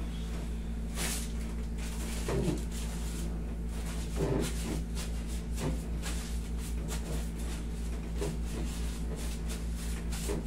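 Hilot massage, hands rubbing and pressing on a person's legs, heard as faint rustling and soft knocks, with a few brief low grunts, over a steady low hum.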